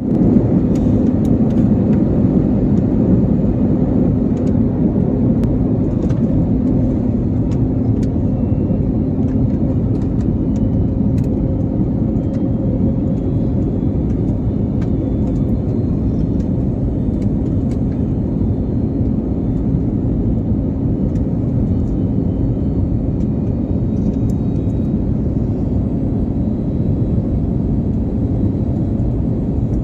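Steady drone of an airliner cabin on approach: engine and airflow noise holding level, with a low hum and a few faint clicks.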